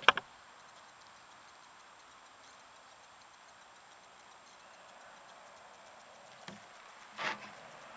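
Faint steady hiss with a few sharp clicks at the start, a small tick about six and a half seconds in and a short, louder knock just after it. The micro drone's motors are not yet running.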